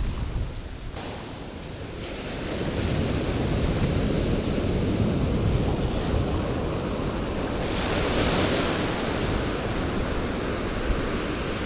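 Surf breaking and washing up the beach in a steady rush, swelling louder about eight seconds in as a wave runs in. Wind buffets the microphone throughout.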